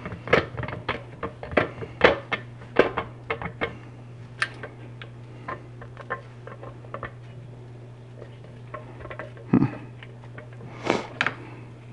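Irregular light clicks and knocks of a KitchenAid stand mixer's metal pivot pin and housing as the base is wiggled against the head to work the pin into its hole, with one louder thump about nine and a half seconds in. A steady low hum runs underneath.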